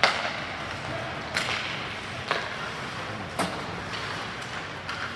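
Sharp cracks of hockey sticks and the puck striking during play: one loud crack at the start, then three more over the next three and a half seconds, about a second apart.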